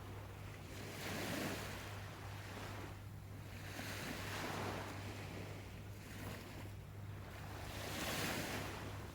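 Sea waves washing ashore. Three swells rise and fall about every three to four seconds.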